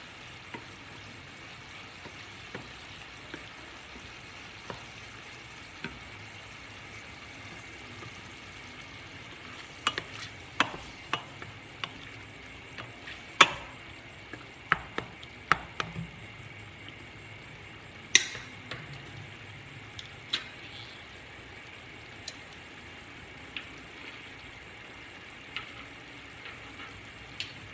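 Ground meat sizzling as it browns in frying pans on the stove. A wooden spoon stirs it, clacking sharply against the pan now and then, with a bunch of knocks about a third of the way in and another loud one a little later.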